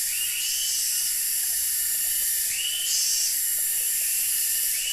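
Loud insect chorus: a steady high hiss with a rising buzzing call that repeats every second or two.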